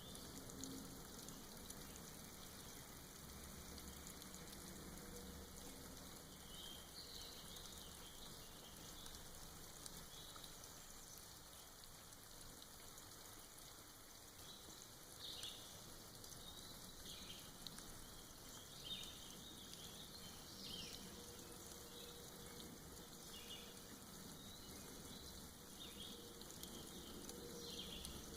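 Soft rain falling and dripping off moss in a forest: a faint, steady patter. A few short bird chirps come through here and there, more of them in the second half.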